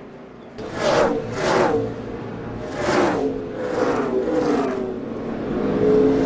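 NASCAR stock cars passing by at speed one after another, about five times, each engine's pitch falling as it goes past.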